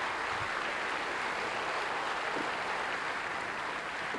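Large audience applauding steadily, beginning to die down near the end.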